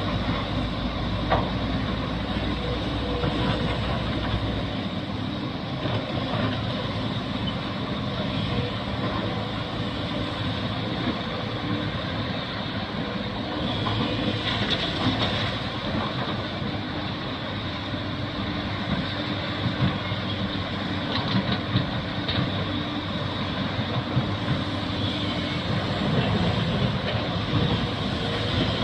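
Excavator working, its diesel engine running steadily with occasional metallic knocks.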